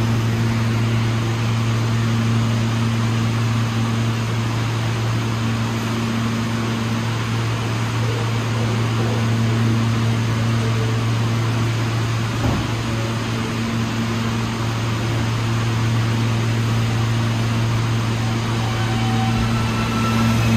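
Steady low hum with an even hiss of air from an R160 subway train standing in the station, its air-conditioning and electrical equipment running.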